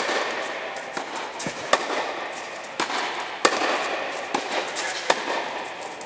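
Tennis rally: balls struck with a racket and bouncing on the court, about six sharp pops roughly a second apart, over a steady background hiss inside an air-supported dome hall.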